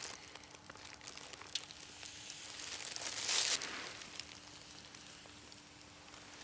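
Wood campfire crackling with scattered sharp pops while a moose steak is laid on a wire grill over the flames. About halfway through, a louder rustling hiss rises and fades.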